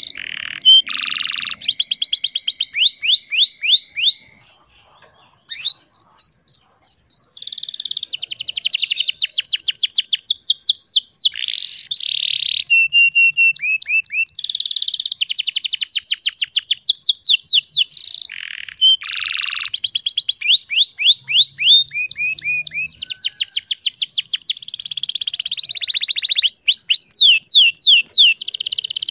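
Domestic canary singing: long runs of fast trills, each made of quickly repeated downward-sweeping notes, switching from one trill to the next, with a brief pause about five seconds in.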